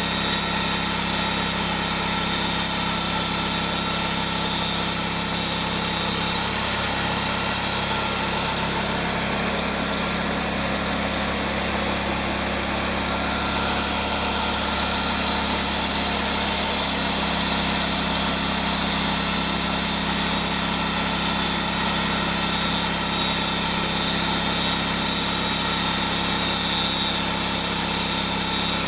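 Engine of a Wood-Mizer portable band sawmill running steadily, its tone shifting for several seconds in the middle before settling back.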